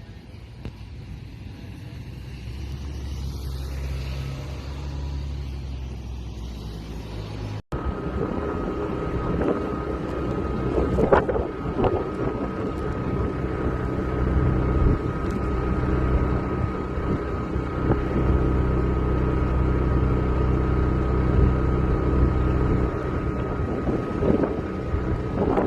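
An engine running, growing louder over the first few seconds. After an abrupt cut about eight seconds in, a louder engine runs on with a steady high whine over it and a few knocks a few seconds later.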